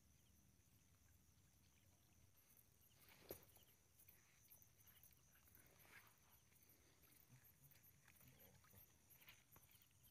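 Near silence: faint rustling and small ticks of hands and a net working through water plants beside a small boat, with one sharper knock about three seconds in, over a faint steady high tone.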